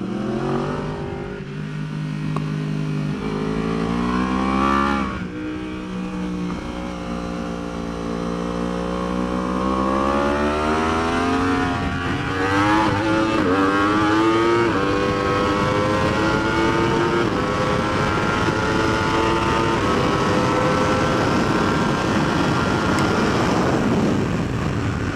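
Yamaha R1 crossplane inline-four sportbike engine at racing speed, with wind rushing over the helmet microphone. The engine note dips about five seconds in, climbs through the middle, holds high and slowly rising along a straight, and drops near the end as the rider comes off the throttle.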